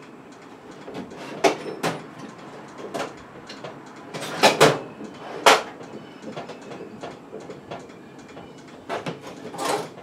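Tools and metal parts being handled at a workbench: scattered knocks and clanks, the loudest a close pair about halfway in, with a short scrape near the end.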